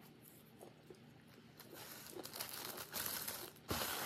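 Paper napkin being crumpled in the hands: faint handling clicks at first, then crinkling that starts about a second and a half in and gets louder after a short break near the end.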